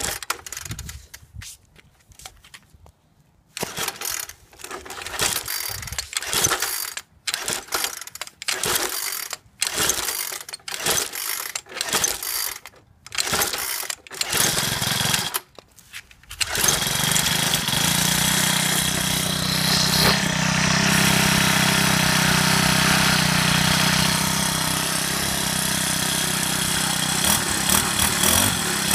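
Troy-Bilt gas edger engine being cold-started: after a few quiet seconds, about a dozen short pulls on the recoil starter, then the engine catches about 16 seconds in and keeps running steadily.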